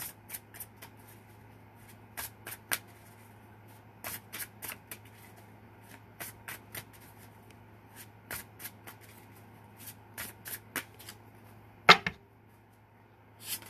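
A tarot deck being shuffled by hand: groups of quick, crisp card riffles and snaps, with a louder slap of the cards about twelve seconds in.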